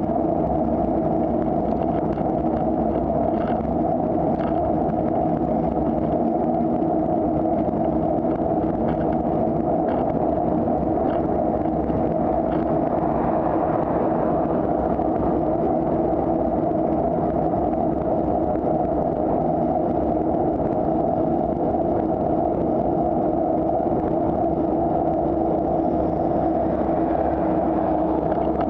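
Steady rush of wind and road rumble on a bicycle-mounted camera's microphone while riding, with a few light rattles in the first dozen seconds. Motor vehicles overtake close by, swelling the noise about halfway through and again near the end.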